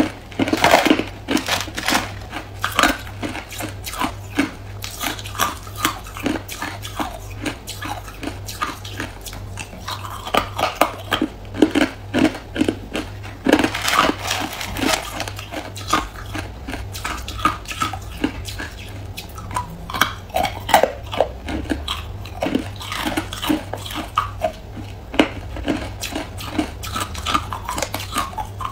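Hard clear ice being bitten and chewed close to the microphone: a continuous run of sharp cracks and crunches, several a second.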